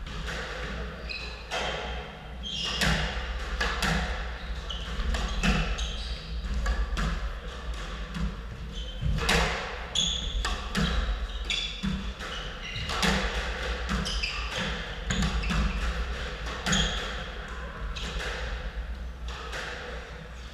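Squash rally: the rubber ball knocking sharply off rackets, the front wall and the wooden court floor, with echoing hits roughly once a second. Short high squeaks of court shoes on the floor are mixed in.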